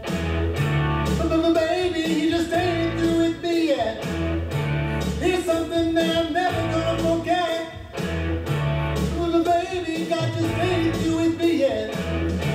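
Recorded song playing: singing over a bass line and a steady beat.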